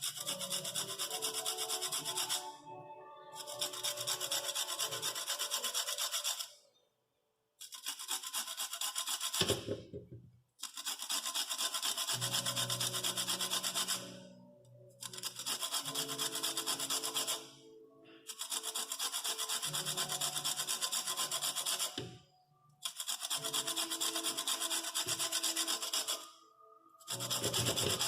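Lemon peel being grated on a hand grater: repeated runs of rapid scraping a couple of seconds long, each broken off by a short pause.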